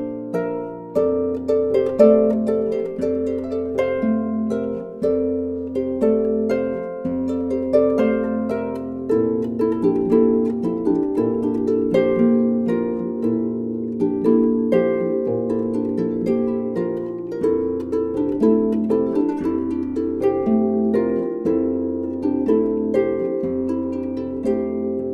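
Background music: a flowing melody of quick plucked-string notes over held low bass notes that change every second or two.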